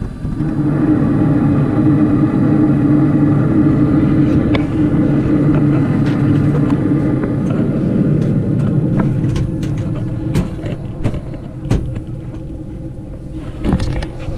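Carrier Infinity propane furnace running after its bird-blocked flue was cleared: a loud, steady hum with a low rumble comes on suddenly about half a second in and eases somewhat after about ten seconds. Scattered sharp ticks and clicks sound through the later part.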